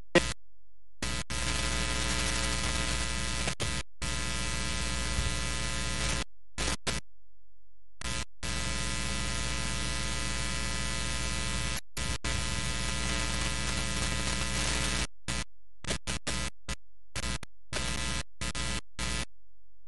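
Steady electrical buzz and static that keeps cutting out abruptly to dead silence and coming back, many times over.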